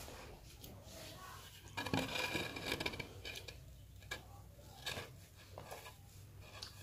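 A hand scraping freshly ground rice flour out of the trough of a stone hand mill, the flour sifting down into a dish: faint rustling and scraping, loudest about two seconds in, with a few light taps later on.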